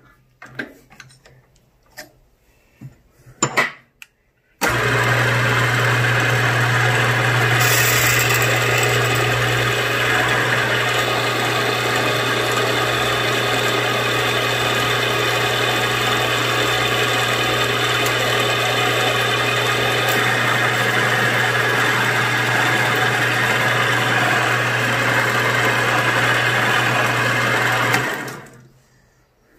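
Benchtop milling machine switched on a few seconds in, running steadily with a low hum while a small drill bit bores a pilot hole into a metal collar, then switched off and spinning down near the end. A few light handling clicks come before it starts.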